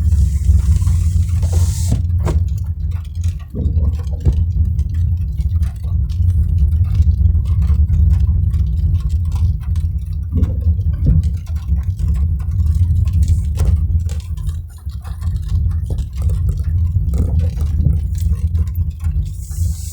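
Car driving in the rain: a steady low road and engine rumble with scattered taps of raindrops, and a short hiss near the start and again near the end.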